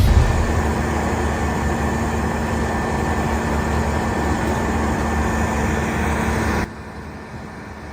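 A heavy machine's engine running steadily with a low hum, then dropping suddenly to a much quieter hum near the end.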